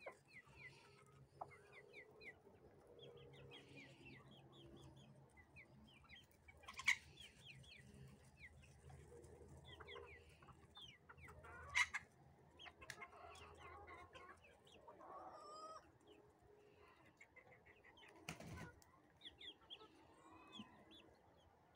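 Chickens clucking and calling faintly, many short quick calls scattered throughout, with three sharp knocks spaced apart.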